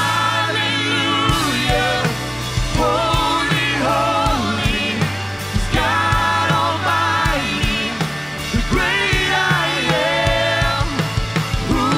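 Live worship band playing: singers' voices over a drum kit, sustained bass notes, electric guitar and keyboard, with a steady beat of drum hits.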